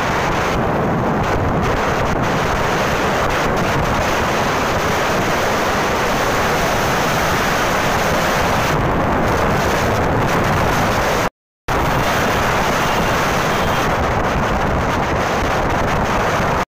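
Heavy wind noise buffeting the microphone on a moving motorcycle, a loud steady rush that covers the engine and road noise. It cuts out for a moment about two-thirds of the way through.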